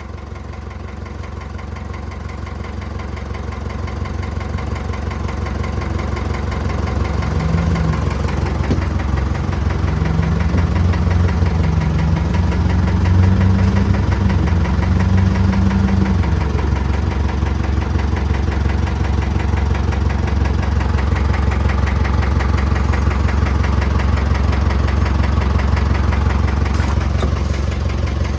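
An engine running steadily under load, growing louder over the first several seconds, with a whine that steps up in pitch for several seconds in the middle.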